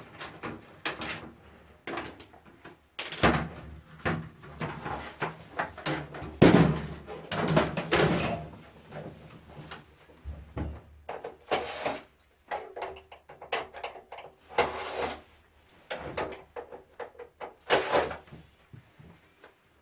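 Irregular knocks, clicks and rattles of a wall-mounted air conditioner's casing and parts being unclipped and handled during disassembly, loudest about a third of the way in.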